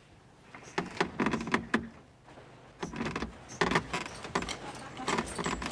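A bed creaking and rustling in short bursts as someone shifts his weight on it, first about half a second in and again from about three seconds in.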